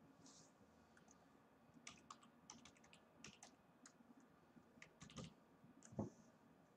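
Faint, irregular clicks and taps through the middle, with one duller, louder thump near the end.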